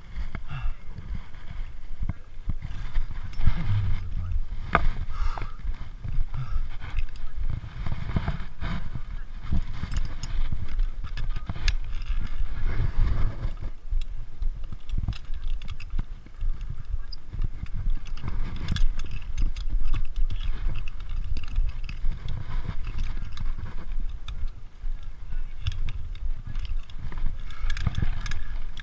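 Body-worn action camera rubbing and knocking against a climbing harness and straps, with wind rumble on the microphone and scattered clicks and rattles of harness gear as the wearer moves through a ropes course.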